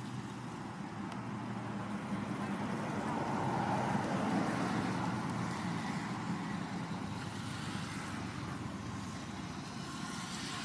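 Steady low rumble of motor traffic going by, swelling as a vehicle passes a few seconds in and then easing off.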